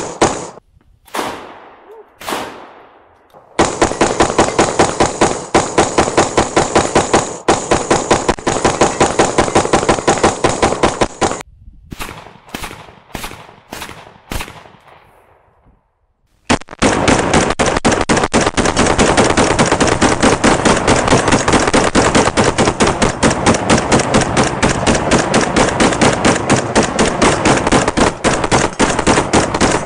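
AR-15-style and AK-style rifles firing long strings of rapid shots. A few single shots come first, then an unbroken string of fire, then a handful of separate shots with echo about twelve seconds in. After a short lull, two rifles fire together without a break to the end.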